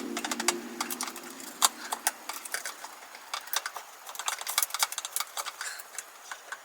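Irregular small clicks and taps of opening tools against an iPhone XR's glass and frame as it is pried open, with the tool clicks coming in quick clusters.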